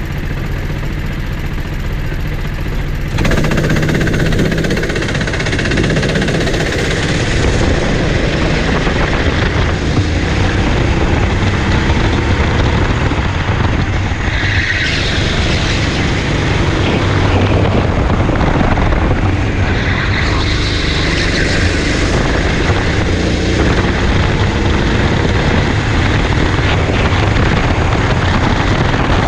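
Kart engine heard from the driver's helmet, running at racing speed with its pitch rising and falling through the corners; it steps up in loudness about three seconds in.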